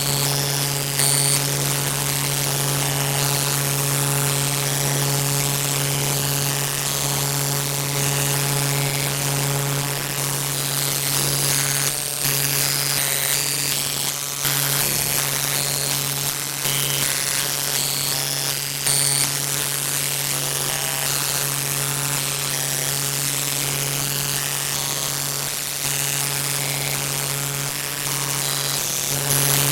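A steady low hum with evenly spaced overtones, overlaid with hiss and scattered crackling clicks.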